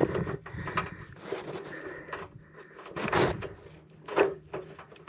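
Scotch Super 88 vinyl electrical tape being pulled off its roll and wrapped around a plug connection, in several noisy pulls. The longest and loudest comes about three seconds in, and a shorter one about a second later.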